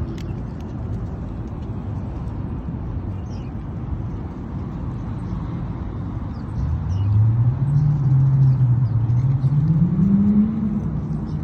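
A motor vehicle engine accelerating, its pitch climbing over about four seconds in the second half, over a steady low rumble of traffic.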